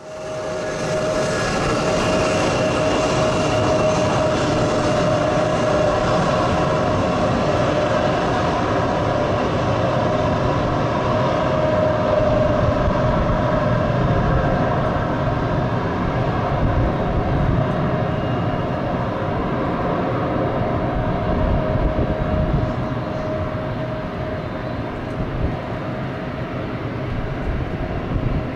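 Jet airliner turbofan engines running at taxi power: a steady rumble with an even whine over it.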